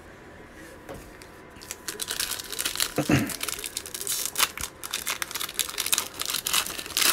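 The foil wrapper of a 2020 Panini Mosaic football card pack being torn open and crinkled by hand. It starts about two seconds in as a dense run of quick crackles, with a louder crackle near the end.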